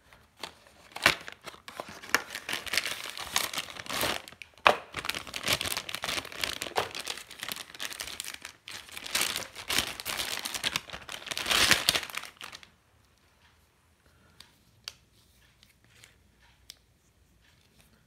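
Clear plastic packaging bag crinkling and rustling as it is handled and opened around a coiled HDMI cable, with a few sharp snaps. The crinkling stops about two-thirds of the way through, leaving only a few faint taps.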